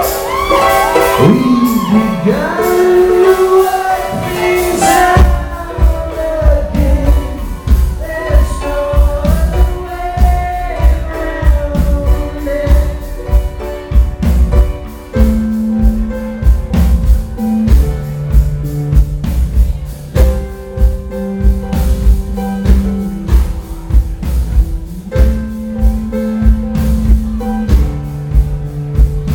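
Live indie rock band playing, with a male voice singing over the first part and a steady drum beat with sustained bass notes, echoing in a large hall.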